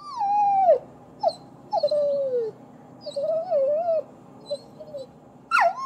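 Wolf whimpering: a series of high whines that mostly fall in pitch, some wavering, with a sharper, louder whine near the end.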